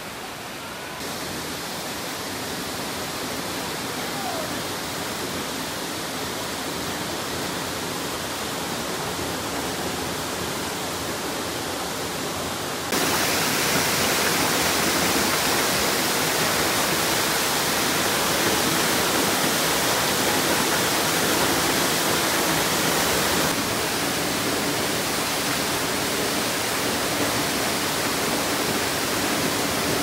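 Waterfall pouring over rock into a pool: a steady rush of water that turns abruptly louder partway through.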